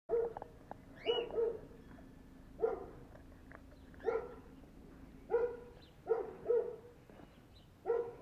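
Pink rubber pig dog toy squeaking as a German Shepherd chews on it. There are about nine short honking squeaks of the same pitch, roughly one a second, some in quick pairs.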